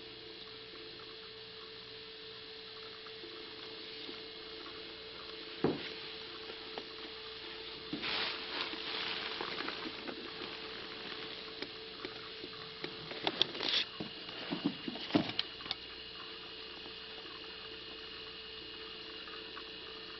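Handling noise over a steady faint hum: a single knock about six seconds in, then rustling and scraping for a couple of seconds, and later a cluster of small clicks and knocks.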